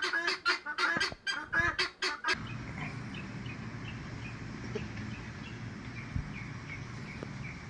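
A bird, goose-like, honking in a rapid run of loud calls that stop abruptly about two seconds in. After that there is a steady low hum with faint short chirps about twice a second.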